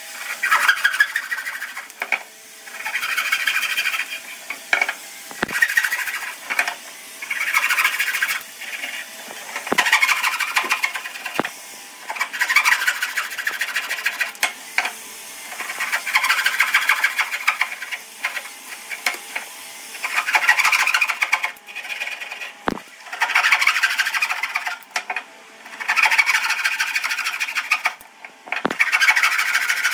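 A tool scraping or abrading wood in repeated passes about every two seconds, each pass one to two seconds long. A few sharp knocks come between the passes.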